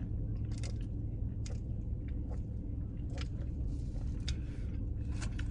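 Steady low hum of an idling car heard from inside the cabin, with a few faint clicks and small eating or drinking sounds scattered through it.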